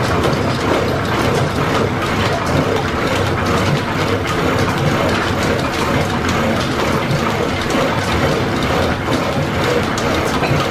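Flat-belt-driven Brown & Sharpe milling machine running under power feed, taking a light cut: a loud, steady mechanical running noise with a fast, fine rattle.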